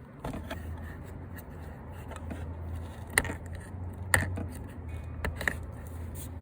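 Sharp plastic clicks and small scrapes as the door panel's wiring connectors are unplugged, with the sharpest clicks coming about three to five and a half seconds in, over a low steady hum.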